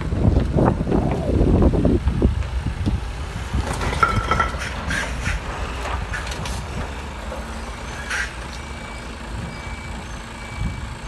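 Articulated lorry's diesel engine running low while the semi-trailer's wheels roll over paving slabs, with a series of sharp cracks and crunches about four to eight seconds in as the slabs break under the tyres. Wind buffets the microphone in the first two seconds, and a faint repeated beep comes near the end.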